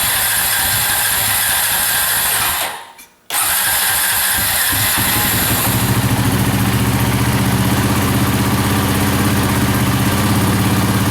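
Freshly rebuilt Honda Rancher 350 ATV's single-cylinder four-stroke engine running, then cutting out abruptly a little under three seconds in as the choke is pulled fully on. It starts again about half a second later and settles into a steady, even idle.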